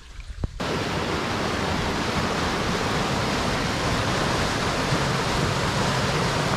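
Steady rushing of a river cascading over rock ledges in a small waterfall, cutting in suddenly about half a second in.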